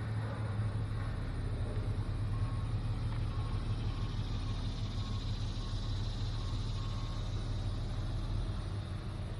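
Engine of a 1967 Chevrolet C30 truck idling steadily, a low even hum.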